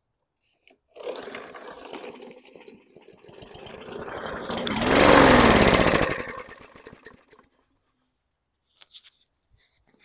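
Briggs & Stratton 500E-series lawn mower engine pull-started: it turns over, catches about four seconds in and revs up, then its pitch falls and it dies out, a start-and-stall.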